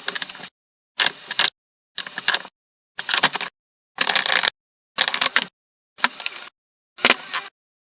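Half-second snippets of clicking and clattering workshop noise, about one a second, each cut off sharply into dead silence.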